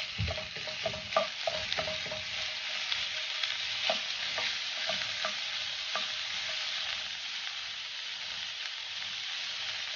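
Thinly sliced beef sizzling as it sears in hot oil and garlic in a frying pan on high heat. A wooden spoon knocks and scrapes against the pan as the meat is stirred, with the knocks thinning out after about six seconds.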